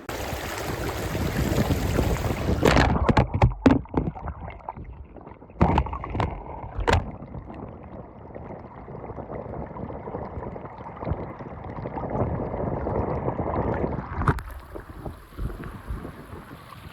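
Rushing river water with wind buffeting the microphone. A few sharp knocks come between about three and seven seconds in.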